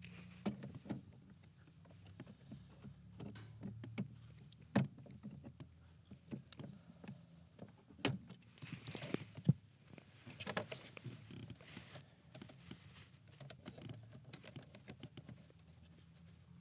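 Scattered metallic clicks, clinks and rustling of hand work with pliers and tools on the blend door cable clip, with a faint steady low hum underneath.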